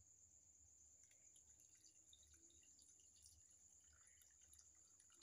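Faint trickling and dripping of water poured from a plastic bucket into a small metal saucepan holding scaled fish.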